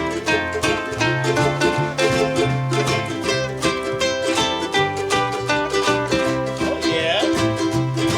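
Ukulele band playing an instrumental break: several ukuleles picking and strumming a bouncy tune over a bass line.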